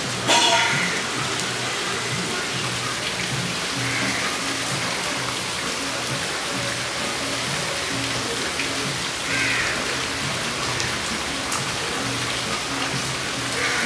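Steady rain falling on the ground and foliage, an even hiss, with music of low held notes playing underneath. A short loud sound comes just after the start.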